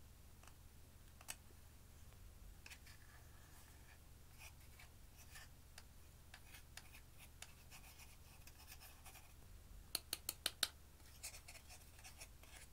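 Faint scratching of a small metal tool digging pressed eyeshadow powder out of its compact pan, in short scraping strokes. About ten seconds in comes a quick run of five sharp clicks.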